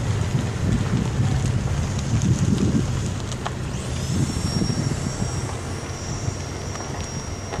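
Car driving along a paved road at low speed: a steady engine and tyre rumble with gusts of wind on the microphone. A thin, high, steady whine comes in about halfway through.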